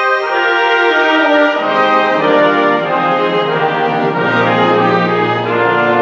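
Symphony orchestra playing a Hanukkah medley, with the brass to the fore. Lower parts join about one and a half seconds in, and a low held note enters about four seconds in.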